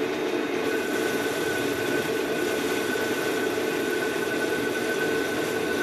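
Metal lathe turning a phosphor bronze bar, set to about 700 rpm, with the tool taking a 1 mm cut along the outside: a steady machine drone. A thin high tone comes in just under a second in and holds.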